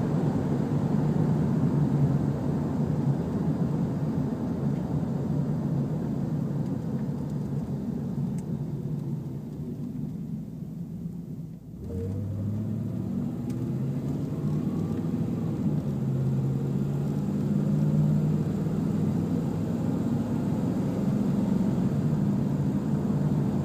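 Inside the cabin of a 1996 Ford Explorer with the 5.0L V8: steady engine and road drone while driving. The drone eases off about halfway through, then comes back suddenly and rises in pitch as the truck speeds up again, and settles into a steady cruise.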